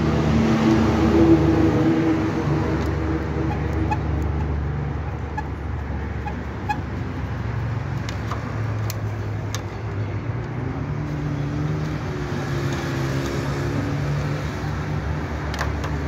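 Motor vehicle engines running steadily, swelling about a second in and again in the last few seconds, with a few faint clicks of a screwdriver on the control panel screws of a window air conditioner.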